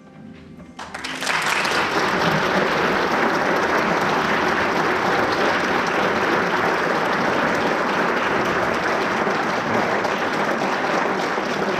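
The last tones of a handbell ensemble die away, then audience applause breaks out about a second in and carries on steadily.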